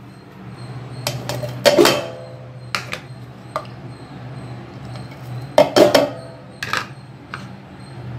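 Clanks and knocks as ingredients are tipped from plastic bowls into a stainless steel mixer-grinder jar. About eight separate knocks, each with a brief metallic ring, loudest around two seconds in and again around six seconds in, over a low steady hum.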